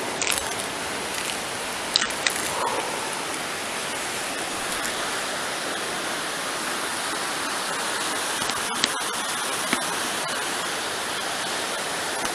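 River rapids rushing under the bridge: a steady roar of fast water, with a few light clicks about two seconds in and again near nine seconds.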